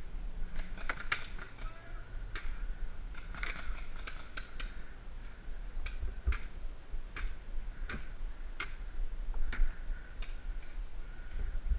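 Irregular sharp pops of paintball shots, sometimes two or three in quick succession, over a steady low rumble.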